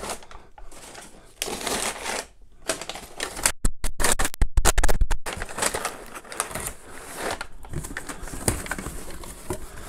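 Crumpled kraft packing paper rustling and crinkling as hands rummage in a cardboard shipping box, with a louder run of sharp crackles and knocks about four seconds in.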